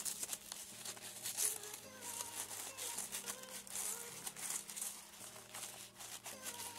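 Crepe paper rustling and crinkling in irregular small crackles as the layered petals of a paper marigold flower are handled and pressed down. Faint background music plays under it.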